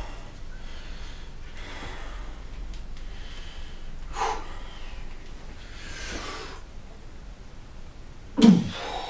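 A man breathing hard in short forceful blasts through the nose and mouth while straining. Near the end comes one loud strained grunt of effort as he bears down to bend an adjustable wrench by hand.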